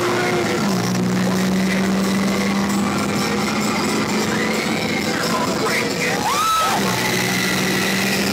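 Radiator Springs Racers ride car running fast along its track, with wind rushing over the microphone and a steady low hum. Riders give a few rising-and-falling whoops in the middle and near the end.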